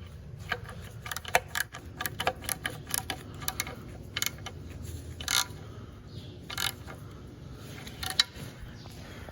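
Hand tools clicking and clinking on metal as the transmission's bellhousing bolts are tightened to the engine: quick irregular clicks for the first few seconds, then a few separate metallic clinks that ring briefly, over a steady low hum.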